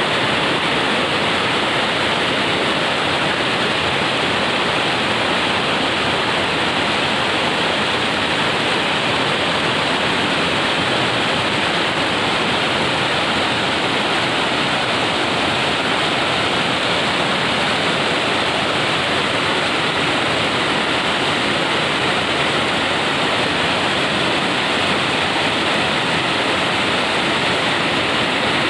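Waterfall: a loud, steady rush of water pouring over a rock ledge and down a stone cascade, unbroken throughout.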